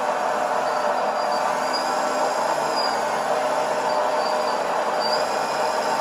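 Hydraulic pump and drive of an RC model Liebherr 926 Compact excavator running with a steady mechanical whine. A few faint short high squeaks come over it.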